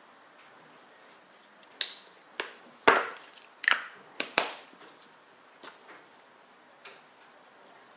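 Sharp clicks and knocks of makeup containers and tools being handled: about six in quick succession, then a few fainter ones.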